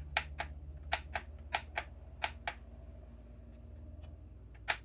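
Light, sharp clicks of small hard objects being handled, coming in quick pairs (about four pairs in the first two and a half seconds) with a louder click near the end, over a low steady hum.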